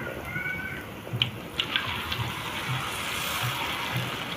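Peyek batter of peanuts and anchovies sizzling in hot oil in a wok, with a few sharp pops and crackles. The sizzle swells about a second and a half in.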